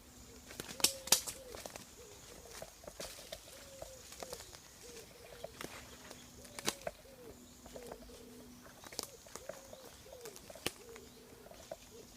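A pigeon cooing in a string of repeated low phrases, over sharp cracks and snaps of footsteps on twigs on the forest floor. The loudest snaps come about a second in and near the middle.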